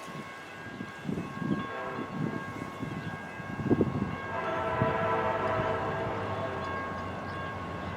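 Diesel locomotive horn sounding a chord of steady tones, growing louder about four seconds in, over the irregular low knocks of train wheels on the rails.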